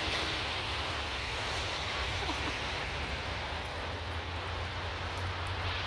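Steady outdoor background noise with a constant low rumble underneath and no distinct events.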